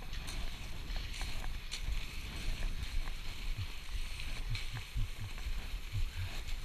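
Cross-country skis sliding downhill on groomed snow with a steady hiss, while wind buffets the camera microphone with a low rumble and a few short thumps in the second half.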